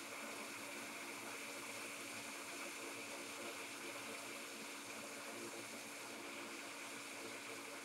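Hot air rework station blowing a steady hiss with a faint high whine, heating a board fuse until its solder melts so it can be lifted off.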